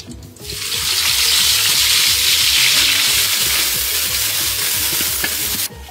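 Green ground spice paste frying in hot oil in a large wok, a loud sizzling hiss that starts about half a second in as the paste lands and is stirred with a ladle, then cuts off suddenly near the end.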